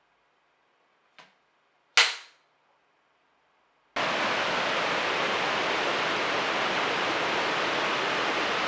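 A faint click, then about a second later a single sharp clapperboard snap, the sticks striking shut for a sound-and-video sync check. About four seconds in, the steady rush of a waterfall starts abruptly and holds loud and even.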